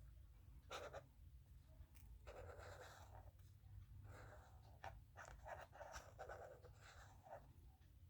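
Faint scratching of a pen writing on paper, in a series of short strokes as a word is lettered by hand.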